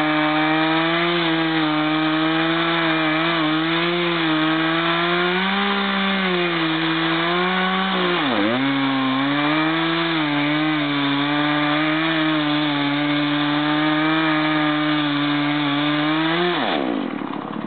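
Two-stroke chainsaw held at high revs while cutting wood, with a freshly filed chain. The engine note stays steady with a slight waver, dips sharply once about eight seconds in, then falls away near the end as the throttle is released.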